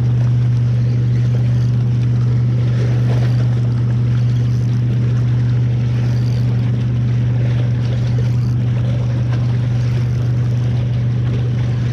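Steady low drone of a boat engine running on the lake, unchanging throughout, over small waves lapping against shoreline rocks.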